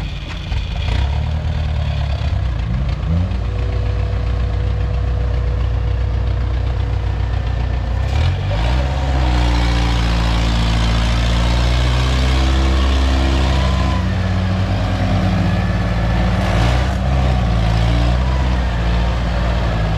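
Engines of a tracked rice-carrier and a mired Kubota DC70 combine harvester running steadily; about eight seconds in the revs rise and hold high as the carrier strains on the tow line to pull the combine out of the mud.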